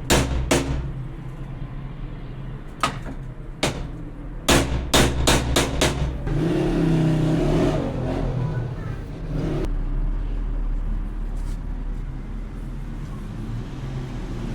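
Sharp knocks, about a dozen in the first six seconds, several in a quick run near the middle. They are followed by a steady low rumble lasting a few seconds.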